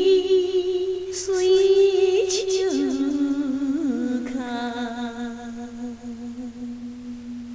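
Solo voice singing a slow Japanese enka line with wavering, ornamented pitch, then holding one long note that fades out near the end.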